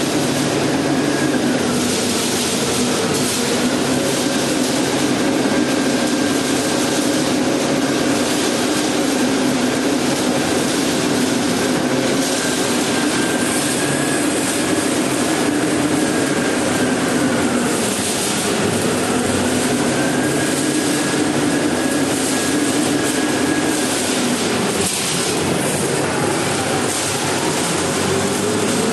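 A self-loading concrete mixer running steadily, with an engine note and a higher whine that twice dip in pitch and come back up.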